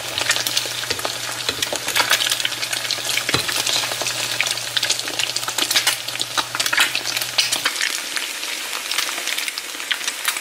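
Eggs frying in oil in a nonstick skillet, sizzling with a dense crackle of small pops. A low steady hum runs underneath and cuts off about three quarters of the way through.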